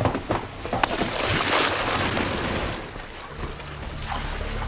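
Splash and rush of sea water as a swimmer goes over the side of a boat into the sea; the water noise swells about a second and a half in and dies away. A low music drone fades in near the end.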